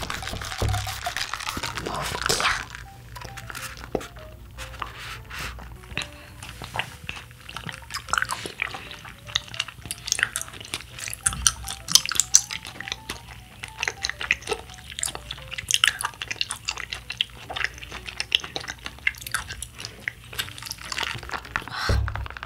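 A straw stirs a brown-sugar bubble tea for about two seconds, then comes a long run of wet clicks and slurps: tea and tapioca pearls drawn up a wide straw and the chewy pearls chewed, mouth close to the microphone. Soft background music plays underneath.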